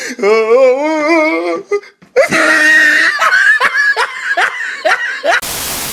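A person laughing hard in a wavering, giggling voice, breaking into rapid bursts of laughter about two seconds in. A short burst of hiss comes at the very end.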